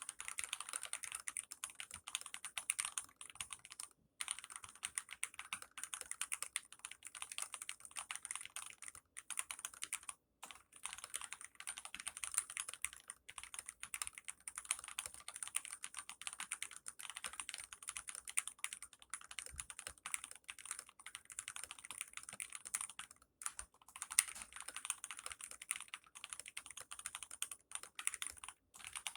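Fast, continuous typing on a GMMK TKL mechanical keyboard with lubed and filmed linear Gateron Red switches, foam under the PCB, and clipped, band-aid-modded stabilisers. The keystrokes run in dense streams broken by a few short pauses.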